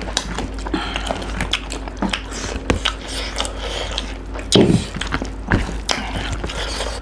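Close-miked eating sounds: chewing and lip-smacking, with fingers squishing and mixing rice and curry on a banana leaf, and a run of small wet clicks. About four and a half seconds in, a louder wet splat as curry is poured from a glass bowl onto the rice.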